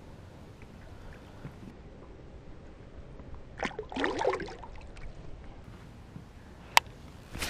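A largemouth bass is let go by hand into the pond, making a short splash of water about four seconds in. A single sharp click comes near the end.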